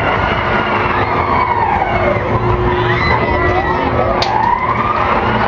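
Wailing siren, its pitch sweeping slowly up and down in long arcs, over a steady low hum.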